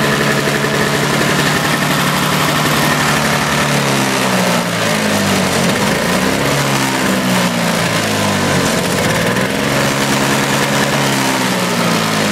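Toro CCR 2450 snowblower's 5 hp R-Tek two-stroke engine running at a steady speed. From about four seconds in, its speed surges up and down again and again.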